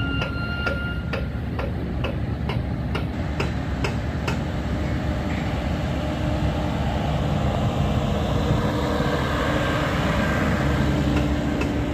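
Heavy diesel machinery running steadily: excavator engines idling and working, with a regular clicking about twice a second for the first four seconds. From about six seconds in, a truck's diesel engine and tyres on gravel grow louder as it drives close past, loudest near the end.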